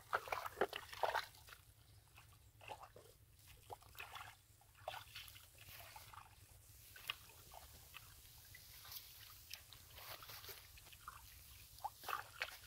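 Hands and feet squelching and sloshing in wet mud and muddy water, a run of irregular short wet clicks and crackles, busiest in the first second or so.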